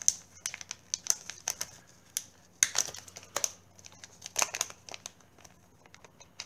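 Static-shielding plastic bag crinkling and crackling as it is opened and handled by hand, in irregular sharp crackles, the loudest a little under three seconds in.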